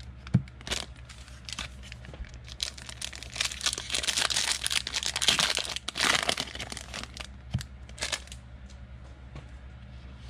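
Foil wrappers of Donruss Illusions football card packs crinkling and tearing as they are ripped open by hand, busiest in the middle and tailing off into lighter rustles and a couple of sharp clicks near the end.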